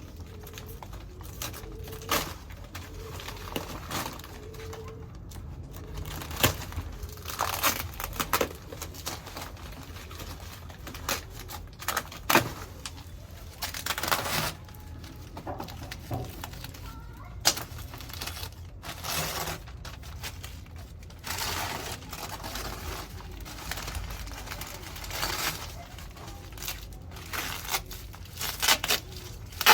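Packaging being handled and unwrapped by hand: irregular crinkling and tearing rustles, with occasional sharp clicks.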